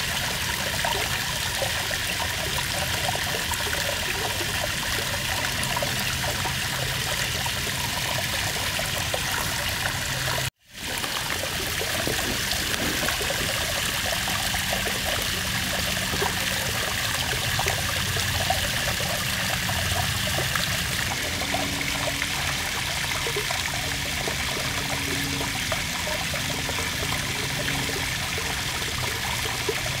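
Small woodland waterfall trickling and splashing into a pool: steady running water. It drops out for an instant about a third of the way through and comes straight back.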